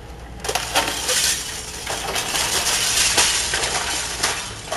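Hydraulic excavator tearing down a building wall: a loud crashing and clattering of breaking and falling debris that starts about half a second in, with many sharp impacts.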